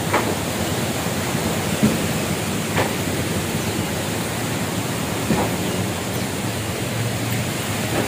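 Steady rushing of flowing water, an even hiss that never lets up.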